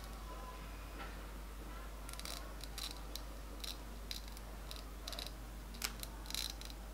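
Small zigzag-edged scissors snipping through wig lace in a series of faint, irregular snips.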